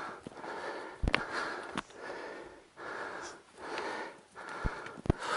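A person breathing hard and fast, roughly one breath a second, out of breath from exertion at high altitude, with sharp clicks scattered between the breaths.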